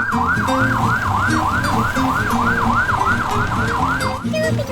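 Emergency-vehicle siren in a fast yelp, its pitch sweeping up and down about three times a second, stopping shortly before the end.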